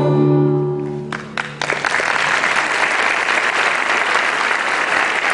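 A choir and string orchestra hold a final chord that dies away in the first second. A couple of early claps follow, and then the audience breaks into steady applause about a second and a half in.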